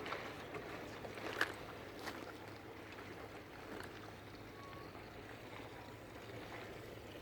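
Water lapping, with a few light knocks and clicks; the sharpest knock comes about a second and a half in.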